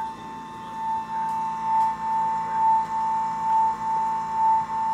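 Ace Line Hauler Brutus Max Torque replacement gear motor running with no load, spinning the line-hauler sheave. It gives a steady high whine that swells and eases about once a second.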